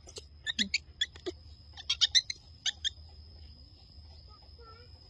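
Baby macaque giving short high squeaks in quick clusters over the first three seconds, then falling mostly quiet. A faint steady high tone runs underneath.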